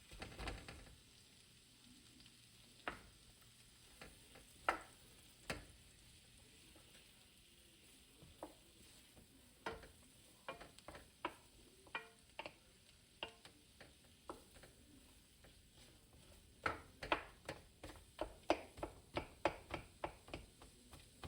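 Kitchen utensil knocking and clicking against cookware as food is stirred. Separate sharp clicks come a few seconds apart at first, then about two to three a second over the last few seconds.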